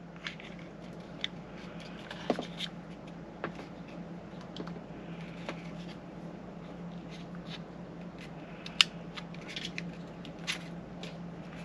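Scattered small clicks and rustles of a wiring harness and plastic connectors being handled and pushed together, with a sharper click about nine seconds in. A steady low hum runs underneath.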